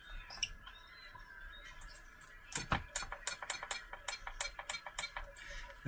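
Small electric winch on an RC crawler pulling against a snagged line, with a faint whine early and then a run of quick, irregular clicks in the second half. The winch is too weak to drag the load.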